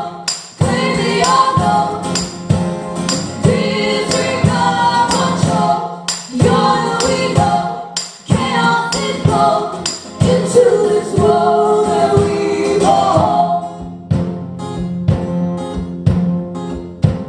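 Live band playing a song with a drum beat and a melody line over it. About 14 seconds in the melody drops away, leaving a sparser, quieter passage.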